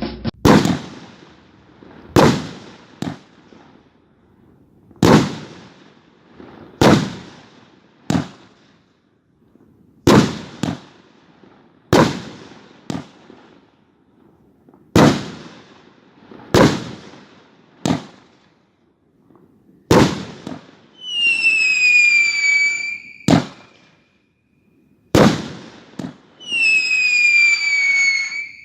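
A 16-shot fireworks cake firing: sharp bangs one after another every one to three seconds, often in close pairs. In the second half come two falling whistles about two seconds each.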